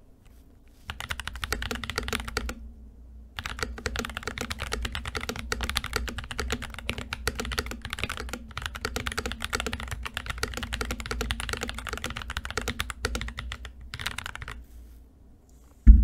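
Typing test on a mechanical keyboard fitted with stock, unlubed Akko V3 Cream Blue switches (long-pole tactile switches). Rapid key presses form a dense run of clacks that starts about a second in, pauses briefly, then runs on until near the end.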